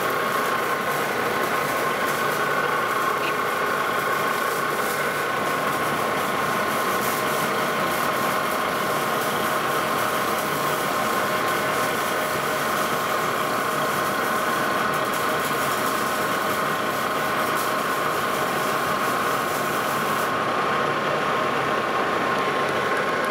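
Lodge & Shipley engine lathe running, taking a 25-thousandths facing cut across the back of a turned flange: a steady whine with a noisy hiss on top. The upper hiss drops away about twenty seconds in while the whine carries on.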